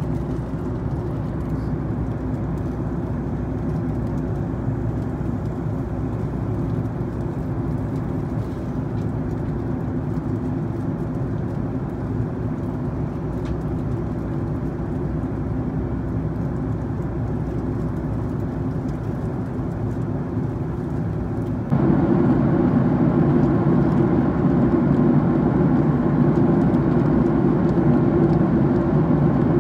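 Steady in-cabin drone of a Boeing 737-8 MAX in cruise, engine and airflow noise, with no break or change in pitch. About three-quarters of the way through it turns abruptly louder.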